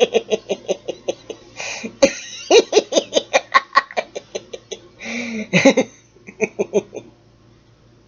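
A woman laughing hard in rapid 'ha-ha' pulses, about five a second, broken twice by gasping in-breaths, and dying away near the end.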